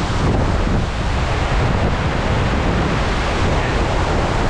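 A large waterfall heard up close at its base, a dense, steady rush of falling water, with wind buffeting the microphone.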